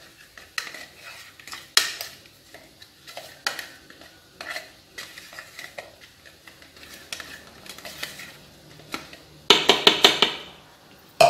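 A spatula scraping and tapping against a stainless steel mixing bowl as mashed purple sweet potato is knocked off into the batter, with small scattered clicks. A quick run of louder knocks comes near the end, then one sharp knock.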